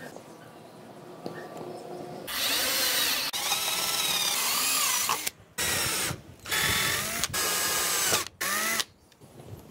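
Cordless drill boring holes into a PVC pipe cap. After about two seconds of faint handling, there is one run of about three seconds followed by four short bursts, and the motor's whine wavers in pitch.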